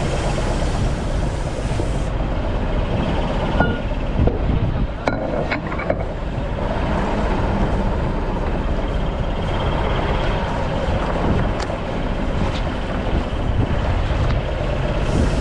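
Steady low rumble of a small fishing boat at sea while a gill net's rope is hauled in over the side, with a few short knocks about four to six seconds in and again near twelve seconds.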